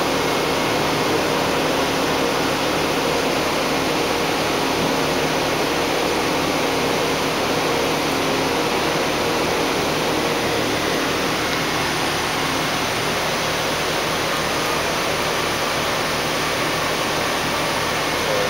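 Campbell vertical CNC grinder running with coolant spraying inside its enclosure: a steady rushing noise with a faint hum through it.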